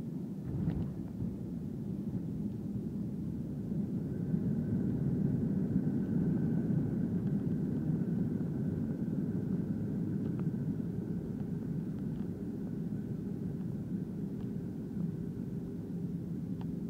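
Airbus A320 cabin noise on the landing roll: a steady low rumble of engines and wheels on the runway, which swells a few seconds in and then eases, with a faint steady whine. A short knock comes under a second in.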